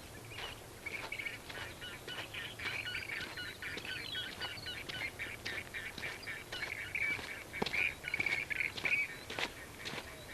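Birdsong in rapid, repeated chattering notes, running for most of the stretch and fading near the end, over footsteps on a trail.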